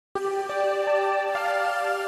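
Background music of soft, sustained held notes, starting abruptly out of silence a moment in.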